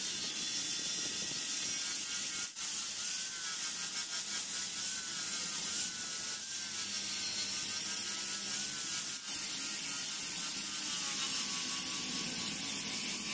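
Handheld angle grinder with a sanding disc grinding a steel kukri blade, throwing sparks: a steady high hiss over the motor's whine, which wavers slightly in pitch. The sound dips briefly twice, a couple of seconds in and again about two-thirds through.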